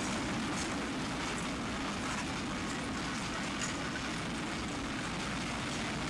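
Narrow-gauge passenger train of open-sided cars rolling past on the track: a steady noise of wheels on rails with faint clicks here and there.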